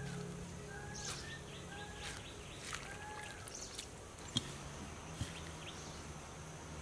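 Birds calling outdoors: a short arched call repeated about once a second four times, over scattered high chirps. Two sharp ticks land in the middle.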